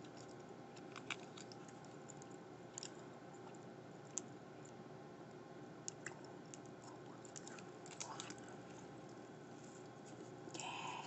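Faint, scattered small clicks and light rustles from hands handling a sushi burrito and squeezing a small sauce packet, with a slightly louder rustle near the end.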